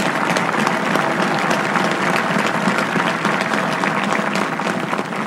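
Crowd applauding steadily, a dense even clapping.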